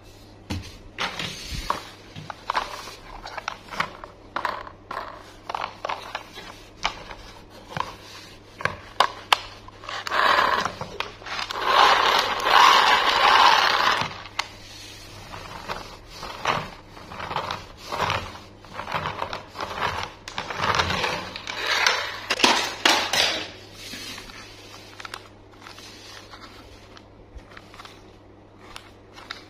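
Plastic toy trains being handled: scattered clicks and knocks of plastic on plastic and on the tabletop, with stretches of scraping and rattling.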